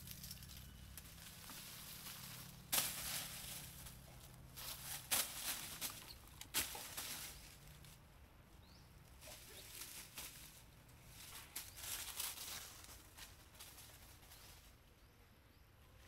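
Leaves and thin branches rustling in irregular bursts as a young monkey moves about in a leafy bush, with a few sharper crackles early on and softer rustles later.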